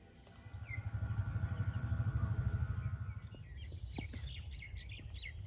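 Rural ambience: small birds chirping over a low rumble. The rumble swells during the first three seconds, then fades.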